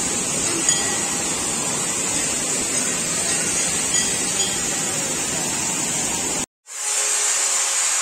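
Steady rushing water of a waterfall, a dense even hiss. About six and a half seconds in it cuts out for a moment and comes back without its deep low end.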